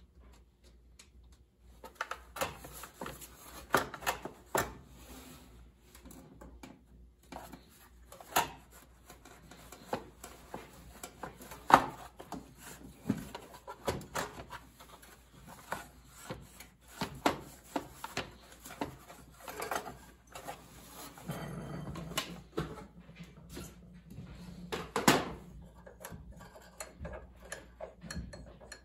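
Irregular clicks, knocks and rattles of a ratchet and the lawn tractor's plastic engine shroud as it is unbolted and worked off the engine, starting about two seconds in.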